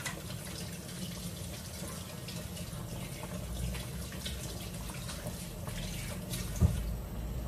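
Kitchen tap running into a sink, with small clatters and a single sharp knock near the end.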